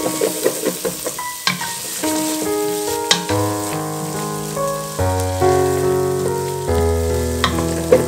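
Chopped onion and pecans sizzling in a frying pan while a wooden spatula stirs and scrapes against the pan, over background music of held notes, with low bass notes joining about three seconds in.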